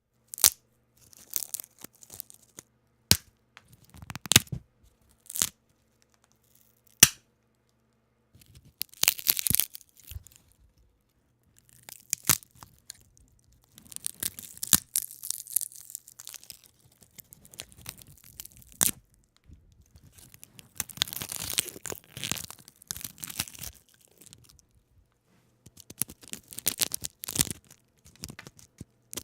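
Wooden branches snapping and breaking: single sharp cracks at first, then longer runs of splintering and crackling as several break at once.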